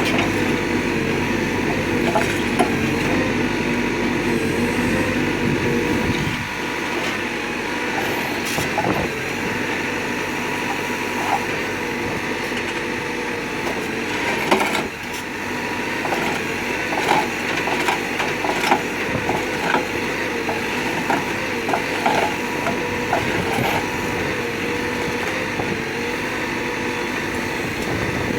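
Backhoe loader's diesel engine running steadily, driving a hydraulic concrete pulverizer whose jaws crack and crunch concrete in scattered sharp snaps. The deep part of the engine sound drops away about six seconds in.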